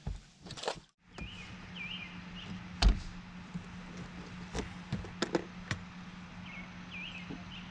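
Scattered sharp knocks and clicks of an angler's rod, reel and feet on a fishing boat's deck, the loudest about three seconds in, over a steady low hum. A small bird chirps a few quick notes now and then.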